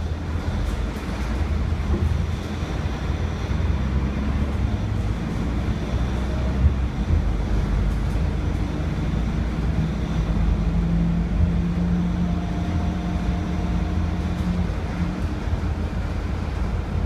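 Mercedes-Benz OC500LE city bus under way, heard from inside the cabin: a steady low drone from its rear-mounted OM457hLA 12-litre inline-six diesel and ZF six-speed automatic, with a steadier engine note standing out for a few seconds past the middle and a single knock from the body about halfway in.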